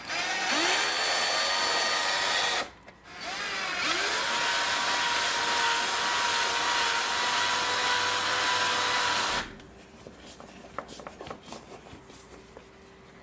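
Power drill driving screws through a bracket into a metal stud behind drywall, in two runs. Each run starts with the motor winding up and then holding a steady pitch: the first lasts about two and a half seconds, the second about six. Faint handling clicks follow.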